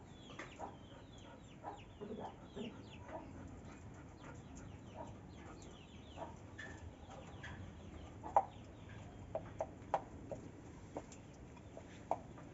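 Chickens clucking, with many short high chirps in the first two seconds. A few sharp clicks come later, the loudest about eight seconds in.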